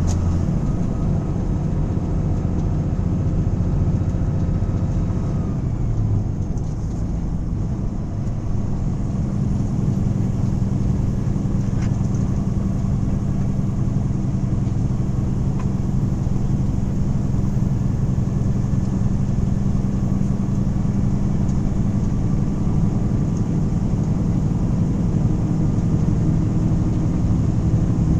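A truck's engine and tyre noise heard from inside the cab while it drives at steady speed, a constant low hum. The engine note changes about six seconds in and again around nine seconds in.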